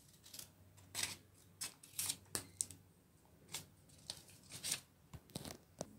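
Child's orange-handled scissors snipping through a paper strip: about a dozen short, crisp snips at uneven intervals.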